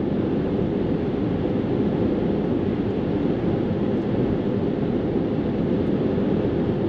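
Steady road and engine noise inside the cabin of a Ford camper van cruising on the highway.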